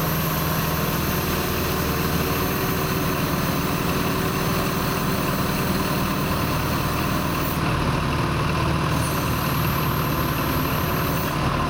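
Diesel engines of truck-mounted mobile cranes running steadily as a low, even drone while they hold and tip a heavy scrap-shear frame in a tandem lift.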